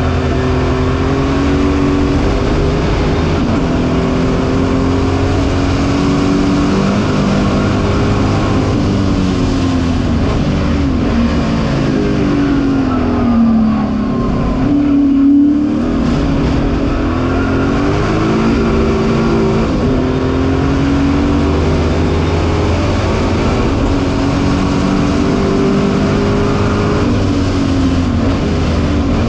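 Ford V8 of a 1965 Alan Mann Racing Mustang heard from inside the cabin at racing speed, its note rising and falling with throttle and gear changes. About halfway the pitch falls away steeply as the car slows for a tight corner, then climbs again as it accelerates out.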